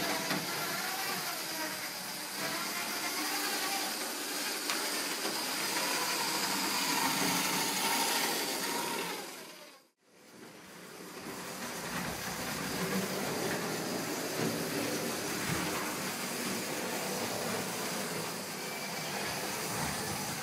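H0 model trains running on a layout: the small electric motors whir with a steady high whine while the wheels run over the track. The sound fades out about halfway through and comes back.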